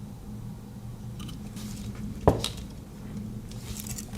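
Metal Swiss Army knives being handled: one sharp metallic click a little over two seconds in, with a few fainter small clicks and light handling noise.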